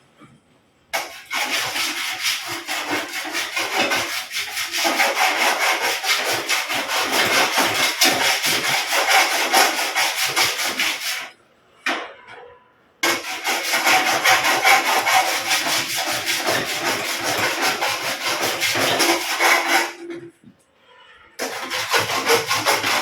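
Body file being drawn in rapid, repeated strokes across a dented sheet-metal panel, making a rough rasping scrape. The strokes come in three long runs with two short pauses. Filing like this shows up the low spots of the dent.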